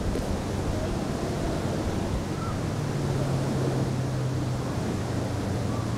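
Wind buffeting the microphone over waves washing onto a sand beach. A low steady hum comes in about halfway through.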